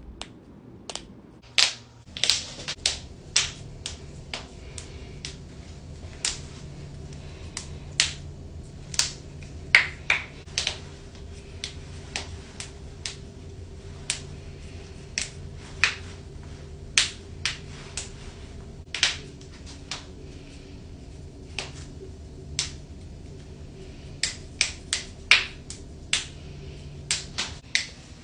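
Knuckles cracking: a long series of sharp pops at irregular intervals, roughly one or two a second, over a steady low hum.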